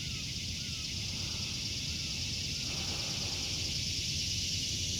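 Steady high-pitched chorus of cicadas droning continuously. Over the first few seconds come faint short chirps, about one a second, with a low rumble underneath.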